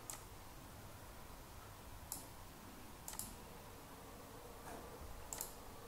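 Three faint computer mouse clicks, spread a second or two apart, over low room noise.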